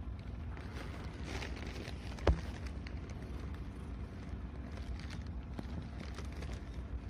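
Steady low outdoor rumble with a few light clicks and one sharp knock a little over two seconds in.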